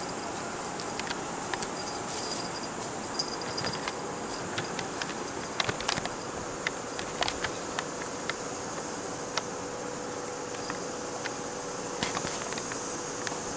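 A Bengal kitten playing with a tinsel-and-feather wand toy on a blanket: scattered light taps, clicks and rustles, most of them bunched near the middle, over a steady high hiss.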